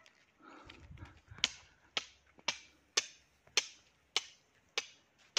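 Footsteps on dry grass and pine needles at a walking pace, sharp steps about two a second, beginning about a second and a half in. Before them comes a short low rumble of wind or handling on the microphone.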